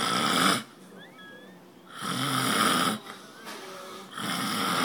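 A sleeping man snoring heavily, one loud snore about every two seconds, each lasting around a second, three in all.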